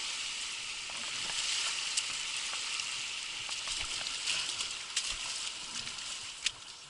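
Rushing water of a shallow mountain stream, a steady hiss with scattered sharp clicks and splashes, fading near the end.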